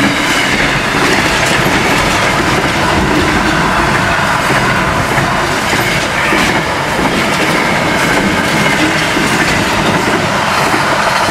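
Intermodal container freight wagons rolling past: a steady, loud rumble and clatter of steel wheels on the rails, with a faint high whine running through it.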